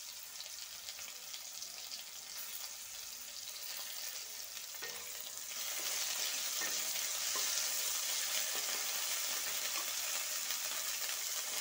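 Garlic and ginger paste sizzling in hot mustard oil with fried onions and tomato in a pan, a steady hiss that gets louder about halfway through as a wooden spatula stirs it around.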